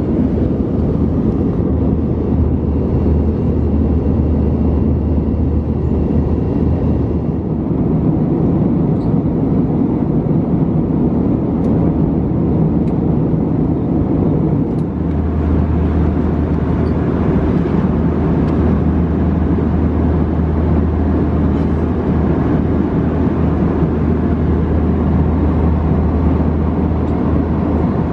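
Steady cabin noise inside an Airbus A321 in flight: the even rush of engines and airflow over a low hum, the hum growing stronger about halfway through.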